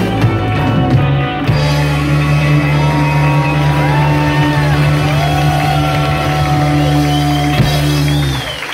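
Live rock band with two electric guitars and drums playing the end of a song: after a second and a half of full playing, the band holds one loud final chord over a cymbal wash. The chord cuts off just before the end.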